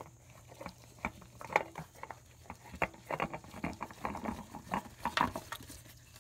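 A new spin-on oil filter being screwed onto its mount by a gloved hand: irregular small clicks, taps and short scrapes of the filter can and glove as it is turned, over a faint steady low hum.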